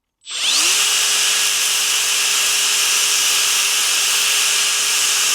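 Electric belt file switched on, spinning up with a rising whine, then running steadily with a loud hiss as it grinds down a burr around a broken grease nipple on a motorcycle swing arm, winding down near the end.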